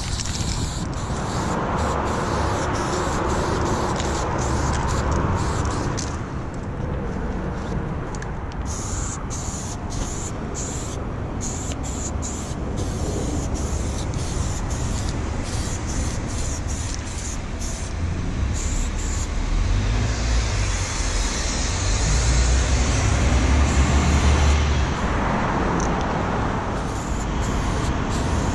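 Highway traffic passing close by: a steady rush of tyres and engines that swells as vehicles go past, loudest about two-thirds of the way through, when a deep rumble comes in.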